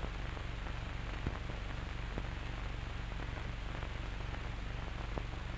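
Steady hiss of an old cine film soundtrack, with a low hum underneath and a few faint crackles.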